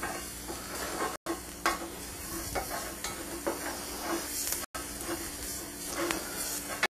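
Chopped shallots sizzling in a hot sauté pan while a spoon stirs and scrapes them across the pan bottom, lifting the leftover fat and browned bits from the seared venison. Light steady sizzle with repeated short scrapes.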